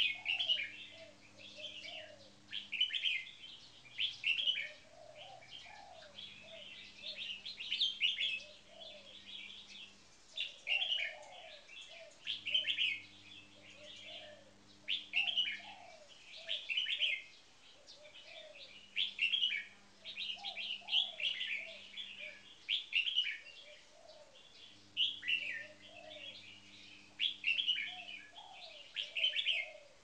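Caged red-whiskered bulbuls singing: short, bright whistled phrases repeated every second or so with hardly a pause, the frequent singing judged in bulbul song competitions.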